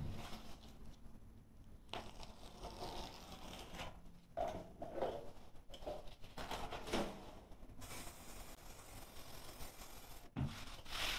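Foam carpet underlay being handled, rustling and scraping against a concrete floor, then a spray can of adhesive hissing for about two and a half seconds as glue is sprayed onto the concrete, stopping shortly before the end.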